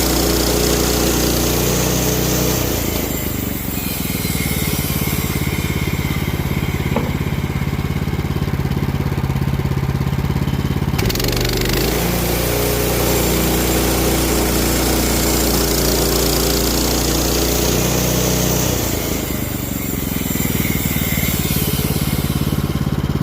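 Petrol engine of a portable sawmill running steadily. A hissing wash of noise over it drops back about three seconds in, comes back suddenly about eleven seconds in, and eases again near the end.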